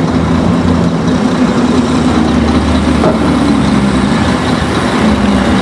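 A large engine running steadily and loud at a constant speed, with a low, even hum.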